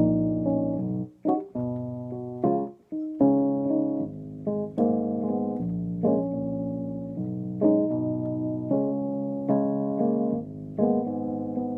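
Piano playing a slow run of chords without voice, each chord struck and left to ring before the next.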